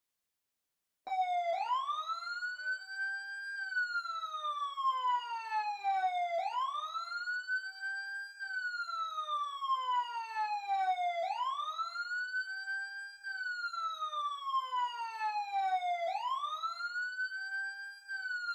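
Electronic fire-alarm siren wailing, starting about a second in: a clean tone that sweeps up over about two seconds, then slides back down over about three, repeating about every five seconds.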